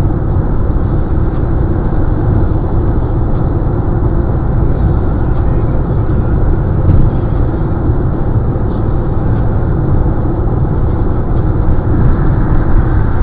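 Steady road noise inside a car's cabin at highway speed: tyre noise on the pavement with the engine running underneath.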